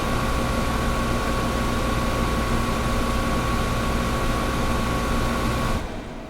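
Air conditioner running: a steady hum and whoosh with a faint held whine. It cuts off abruptly near the end, leaving a much fainter hiss.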